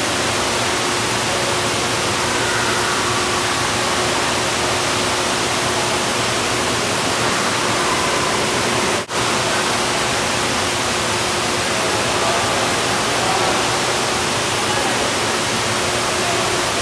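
Steady rush of water pouring from an indoor pool's umbrella-shaped fountain, with a faint steady hum underneath. The sound cuts out for an instant about nine seconds in.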